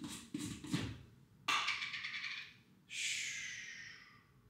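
Handling knocks, then two pouring hisses while a pre-workout and creatine drink is made up: a short grainy one about a second and a half in, then a longer one that slides lower and fades out.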